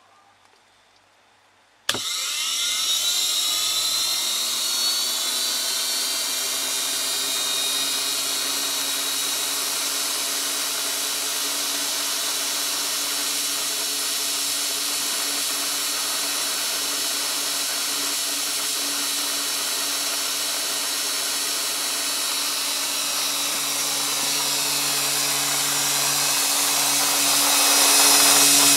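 Washing machine motor, run from a 240 V DC battery pack through a drive board, switching on about two seconds in. It spins up with a rising whine, then runs steadily, and gets louder over the last few seconds.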